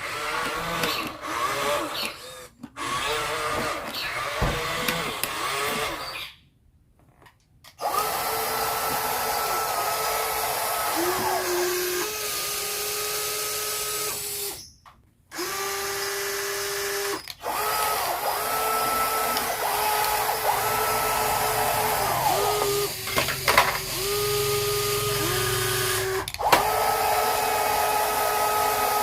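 Small electric motors and gearboxes of radio-controlled model construction machines whining in short runs, the pitch stepping up and down as the motors start and stop, with two brief dropouts.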